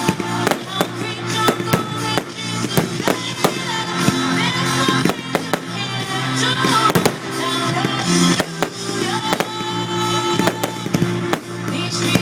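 Fireworks going off in a rapid string of sharp bangs and crackles over loud music played for the show.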